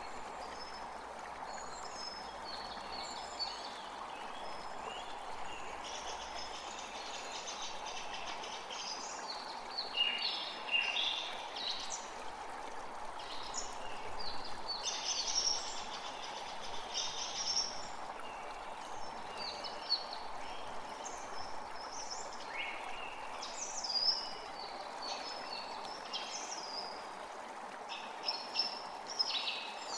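Steady rush of a running stream, with birds chirping and trilling over it, busier from about a third of the way in.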